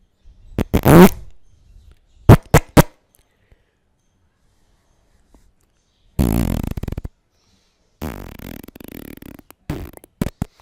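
A string of separate fart sound effects. About a second in comes one whose pitch falls, then three quick short pops. About six seconds in comes a buzzy one, and near the end a longer sputtering one that ends in a few short pops.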